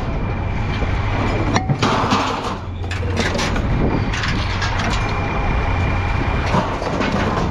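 A heavy engine running steadily, with clanks of scrap steel being thrown onto a pile; one sharp clank about a second and a half in.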